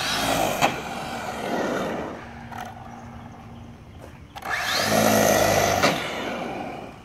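Electric motor and drivetrain of a VKAR Bison RC truck whining as it accelerates on asphalt in two runs, the pitch rising each time, the second run about four and a half seconds in being the loudest. It is running on a broken tire.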